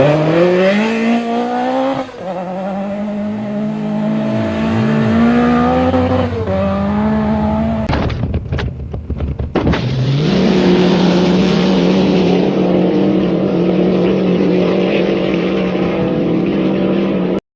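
AI-generated rally car engine sound, made by a video-to-audio program for footage of a Lancia 037. The engine note rises and falls with the revs, breaks up into a choppy stretch about eight seconds in, then settles into a steady high drone that cuts off abruptly just before the end.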